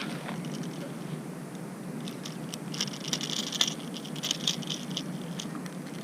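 Rustling and patter-like crackling with scattered sharp clicks, busiest from about three to five seconds in, over a steady low rumble.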